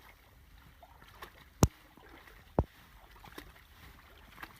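Faint water sounds with two sharp knocks about a second apart, the first the louder.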